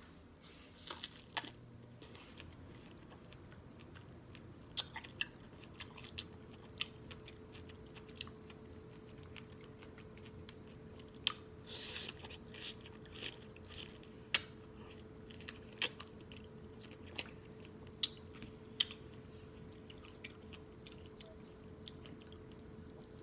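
Close-miked chewing and lip-smacking while eating strawberries: a string of wet mouth clicks and smacks at an uneven pace. A faint steady hum comes in about six seconds in.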